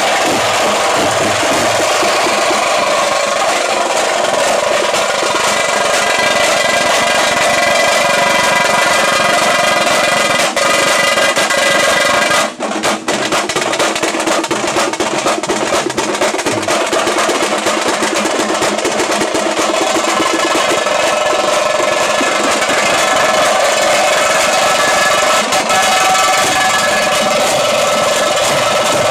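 Tamte (tamate) frame drums beaten with sticks in fast, continuous rolling rhythms, with a brief break about twelve seconds in.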